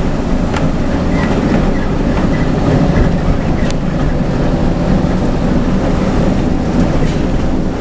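Front-engined bus driving at road speed, heard from inside the cab: a steady low engine and road rumble, with a couple of faint clicks.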